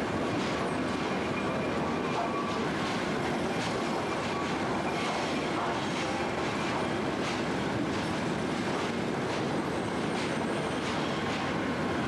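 Sawmill lumber-yard machinery running: a steady mechanical din with frequent metallic clanks and knocks.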